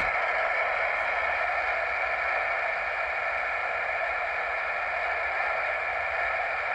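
Steady static hiss from a President Jackson CB radio's receiver speaker, tuned to a channel with no station coming through.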